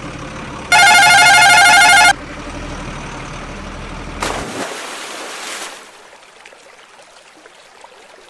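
A truck engine sound runs steadily, broken about a second in by a loud, warbling ringing tone that starts and stops abruptly and lasts over a second. About four seconds in, a splash as the toy dump truck hits the river, then the engine sound cuts out and only faint water noise is left.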